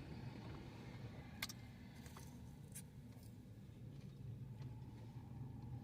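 Quiet room with a steady low hum and a few faint, sharp clicks scattered through it.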